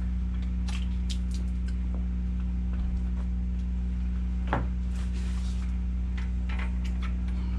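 Pressure washer's Loncin 14 hp petrol engine running steadily, with scattered clicks and knocks as hose quick-release fittings are handled and coupled to the machine.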